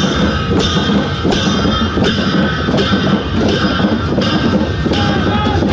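Newari dhimay drum band playing: big two-headed barrel drums beaten with stick and hand under large hand cymbals that clash and ring about once every three-quarters of a second, in a steady driving rhythm.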